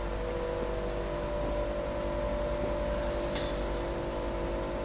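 Steady mechanical hum with a few steady tones from a powered-up Okuma MILLAC-468V vertical machining center and its auxiliary units. A brief hiss about three and a half seconds in.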